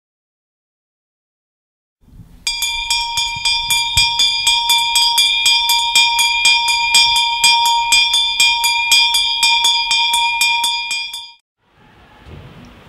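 A bell rung in a fast, even run of about five strikes a second, ringing on the same bright tones throughout. It starts about two seconds in after silence and stops suddenly near the end.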